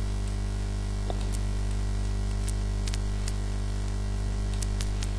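Steady electrical mains hum with hiss on the recording line, broken by a few faint, sharp clicks.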